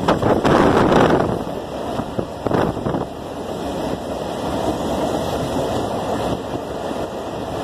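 Passenger train running along the track, heard from an open door, with the steady rumble and clatter of wheels on rails and wind rushing past the microphone. The rush is loudest about a second in, and a couple of sharper clacks come near the middle.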